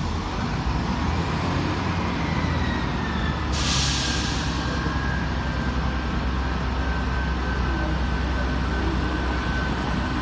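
Class 158 diesel multiple unit's engines running as the train pulls slowly away, with a steady low rumble and a steady high whine. A short, sharp hiss of released air about a third of the way in.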